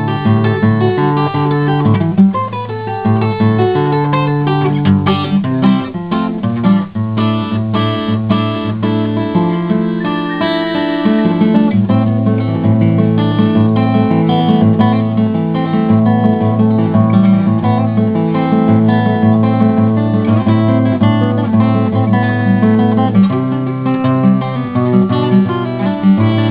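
Music led by acoustic guitar, played steadily throughout.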